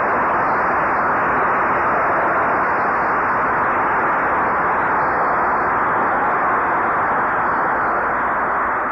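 Audience applauding steadily, on an old muffled recording with little treble.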